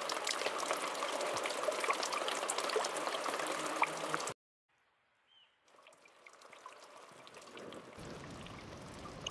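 Small stream of water trickling and dripping down a rock cliff, a steady splashing hiss with many tiny drop ticks. It cuts off abruptly about four seconds in to near silence, and a fainter, duller wash of the same ambience comes back near the end.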